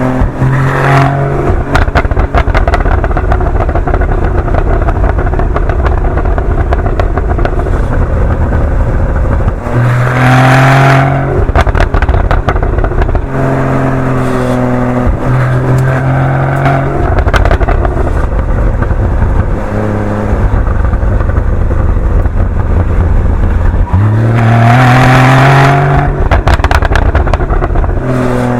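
Porsche 981 Boxster GTS's naturally aspirated 3.4-litre flat-six running through its stock Porsche Sport Exhaust at low speed, with repeated pops and crackles from the exhaust. It pulls up in revs twice, about ten seconds in and again about twenty-four seconds in.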